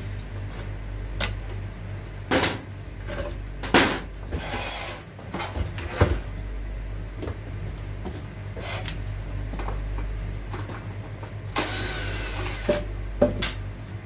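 Knocks and clatter of a metal microwave oven's casing being handled and turned onto its side on a workbench, with several sharp thumps spread through and a noisy burst about a second long near the end, over a steady low hum.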